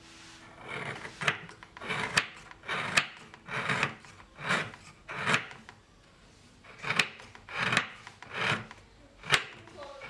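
Kitchen knife shaving a block of gula jawa (palm sugar) on a wooden cutting board: about a dozen rasping scrapes, roughly one a second, many ending in a sharp click of the blade on the board, with a short pause about halfway through.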